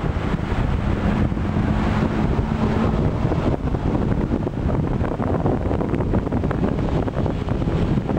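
Ride noise inside a Škoda 15Tr articulated trolleybus under way: a steady rush of road and wind noise, with a low hum through the first three seconds.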